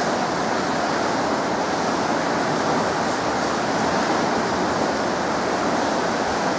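Steady rushing of river water pouring through the open gates of a hydroelectric dam.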